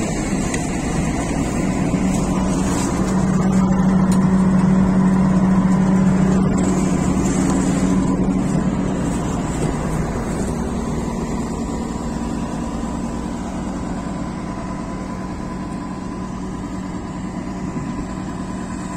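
Claas combine harvester running with a newly fitted Berdyansk corn header on its first start-up: a steady machine drone with a constant whine, slowly getting quieter.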